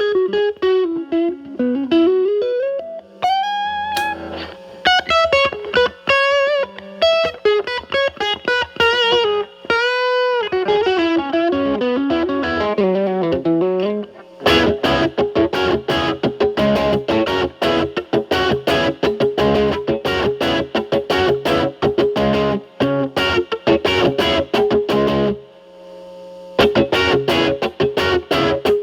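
Electric guitar (Telecaster) through a Fender Pugilist distortion pedal into a Marshall Valvestate amp. For about the first half it plays single-note lead lines with the gain cleaned up. Then it switches to dense, rapidly picked distorted chords with the pedal in blend mode, with a brief stop near the end.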